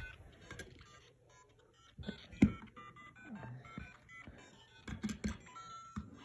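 Electronic beeping jingles and melody from a LEGO Super Mario interactive figure's small speaker. A few handling knocks near the microphone, the loudest about two and a half seconds in and a pair around five seconds in.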